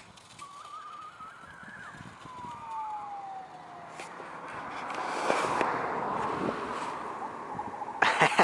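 A child's distant high voice singing in wavering, sliding tones while sledding downhill, then a swell of rushing noise through the middle. Just before the end, crunching footsteps in snow begin.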